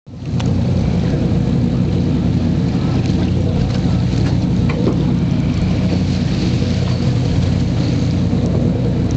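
Fishing boat's engine running steadily, with wind and water noise over it.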